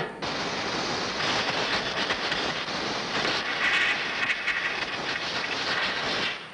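Compressed-air blow gun hissing steadily as it blows the washed fuel-valve parts dry. The blast starts and stops abruptly, about six seconds long.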